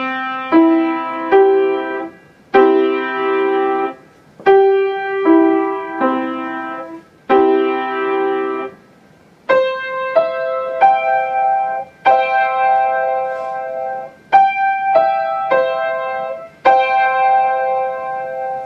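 Piano playing a student's own short elephant melody in slow phrases of a few notes each, with brief pauses between them. The first half sits low on the keyboard, and the second half moves higher.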